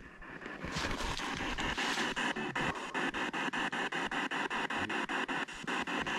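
P-SB7 spirit box sweeping through radio stations, giving a choppy hiss of static cut into about seven even pulses a second, which begins about a second in.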